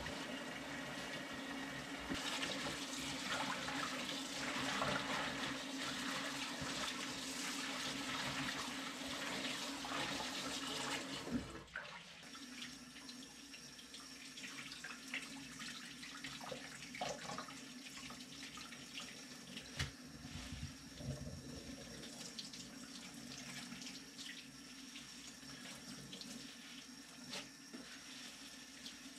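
Water running, louder for the first dozen seconds, then dropping suddenly and carrying on quieter over a low steady hum.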